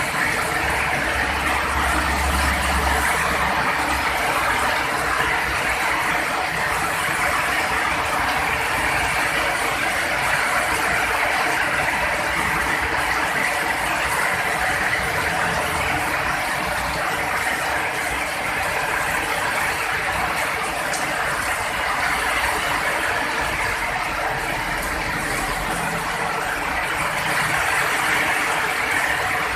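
Heavy rain falling in a steady downpour, an even hiss, with a low rumble in the first few seconds.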